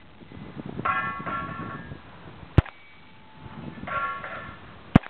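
Two M4 carbine shots, one about halfway through and one near the end. Each is followed about a second later by the ringing "plink" of a round hitting a steel silhouette target downrange, and one such plink from an earlier shot rings about a second in.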